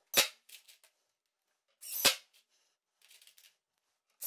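Three sharp knocks about two seconds apart, each followed by a few fainter clicks: tools and clamp parts being handled and set against a wooden workbench.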